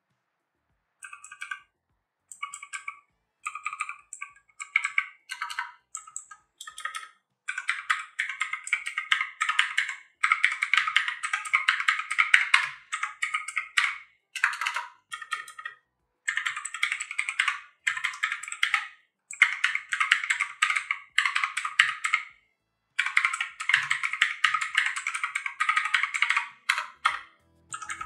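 Typing on a Live Tech Phantom mechanical keyboard with clicky Cherry MX Blue clone switches. A few single keystrokes come first, then fast runs of clicking keystrokes broken by short pauses.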